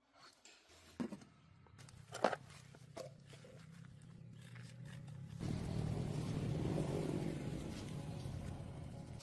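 A car engine running, with a couple of sharp knocks early on; it gets louder and rougher about five and a half seconds in.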